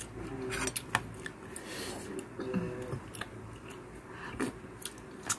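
Close-up eating sounds: chewing and mouth noises with scattered light clicks, including a metal spoon knocking against a small stainless-steel bowl.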